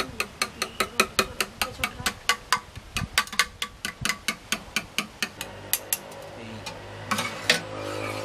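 A spoon beating eggs in a small steel pot, clinking against the metal about six times a second. The clinks fade out after about five seconds, with a couple of louder clinks near the end.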